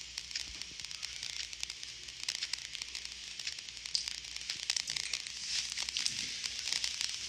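A steady crackling hiss, thick with tiny clicks, that grows a little louder in the second half.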